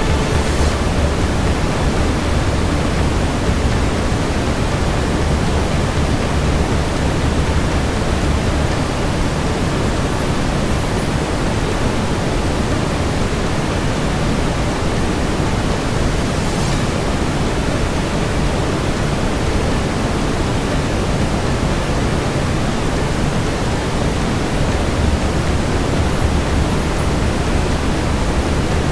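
Steady brown noise layered over a fireplace ambience, with a faint crackle or pop twice.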